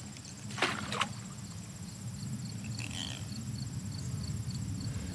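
Two short splashes about half a second and a second in, as a trout is let go back into the creek, over the creek's steady running water. Grasshoppers chirp in a fast, even rhythm throughout.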